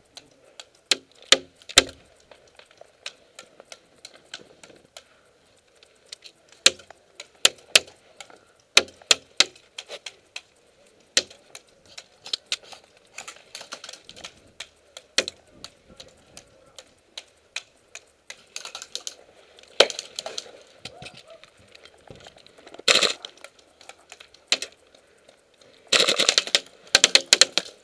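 Airsoft guns firing: sharp irregular shots scattered throughout, with a few denser strings of rapid shots in the second half, the last near the end.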